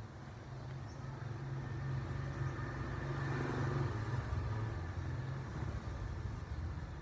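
A motor vehicle engine running with a steady low hum, growing louder to a peak around the middle and then easing off.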